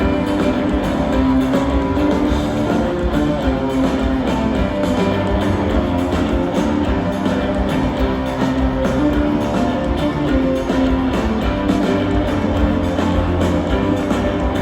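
Live rock band playing an instrumental passage with electric guitar, bass and drum kit, loud through the concert PA.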